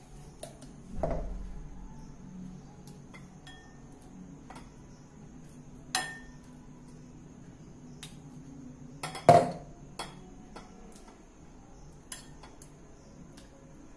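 Kitchen utensils clinking and knocking: a serving spoon scraping and tapping against a pressure cooker and a bowl while cooked porridge is dished out. Three sharper knocks stand out, about a second in, about six seconds in, and the loudest about nine seconds in, over a faint low hum.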